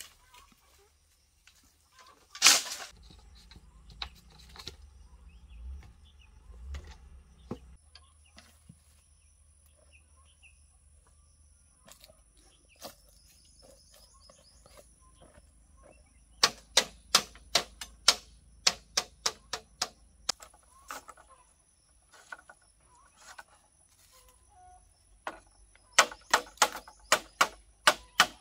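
Machete chopping bamboo: one hard knock a couple of seconds in, then runs of quick sharp strikes, about three a second, in the second half.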